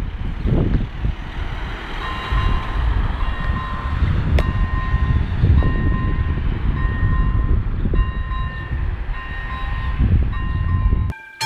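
Czech level-crossing electronic warning signal beeping steadily, about one and a half beeps a second, starting about two seconds in, over a loud low rumble. The sound cuts off abruptly near the end.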